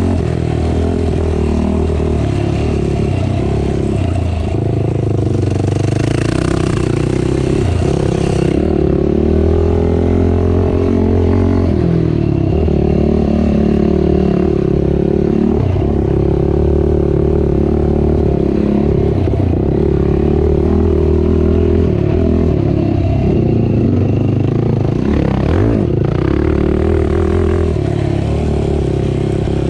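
Racing ATV engine running hard, its pitch rising and falling again and again with the throttle.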